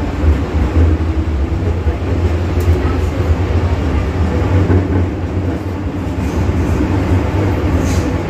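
First-generation MTR M-Train electric multiple unit running, heard from inside the car: a steady low rumble with hums above it, and a couple of faint clicks near the end.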